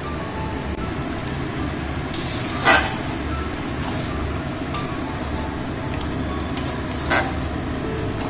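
Metal spoon clinking and scraping against a metal kadai while stirring thick spinach paste as it is cooked down. Two sharper clinks come about two and a half seconds and seven seconds in, with a few lighter ticks between. A steady low rumble runs underneath.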